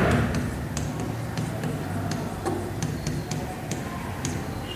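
Stylus tapping and clicking on the glass of an interactive display during handwriting, as irregular sharp ticks several times a second, over a low steady hum.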